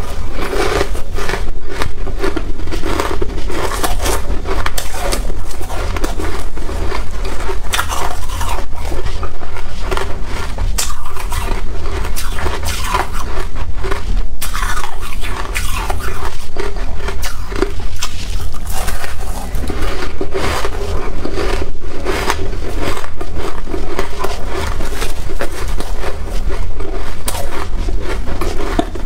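Freezer frost being bitten and chewed close to a clip-on microphone: loud crunching and crackling without a break, with scraping as handfuls of frost are taken from the bowl.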